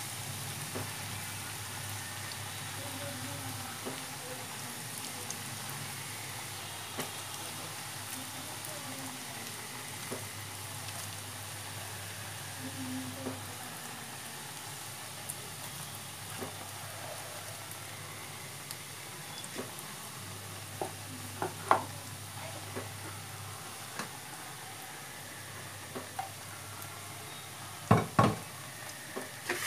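Potato pakoras in gram-flour batter deep-frying in hot oil, a steady sizzle throughout. Scattered small clicks run through it, with a few sharper knocks in the second half, the loudest near the end.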